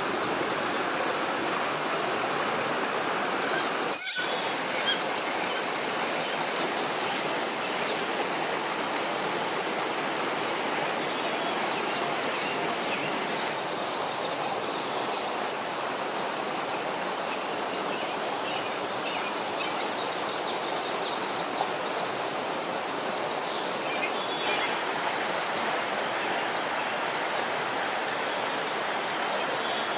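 Stream water running steadily, an even rushing with a brief break about four seconds in.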